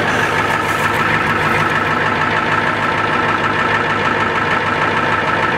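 Ford Econoline van's engine idling steadily, heard from beside the vehicle.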